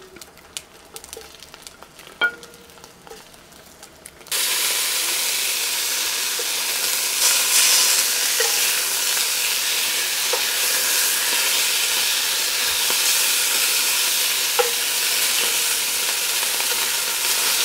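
Coarse bratwurst frying in hot oil in a cast-iron Dutch oven. After a few faint clicks, a loud, steady sizzle starts suddenly about four seconds in and keeps going.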